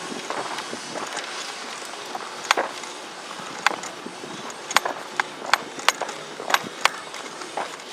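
Scattered airsoft gunfire: about nine sharp single cracks at irregular intervals, coming faster in the second half.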